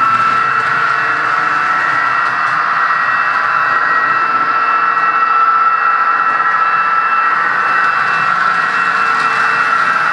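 ESU H0-scale Class 66 model locomotive's sound decoder playing its diesel-engine running sound through the model's small onboard speaker while the locomotive drives. The sound is loud and steady, with a constant high whine.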